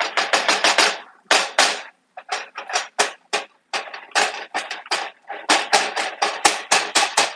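Spatula scraping and chopping ground meat in a frying pan, in quick runs of several strokes a second with short pauses.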